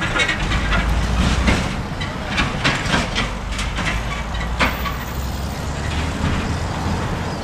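Steady low rumble of road traffic, with a few sharp clicks scattered through it.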